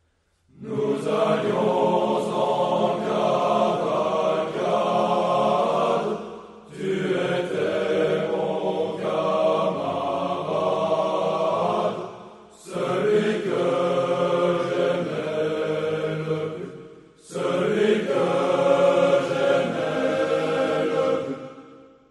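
Choir singing a traditional French scout song in four phrases, with a brief pause between each.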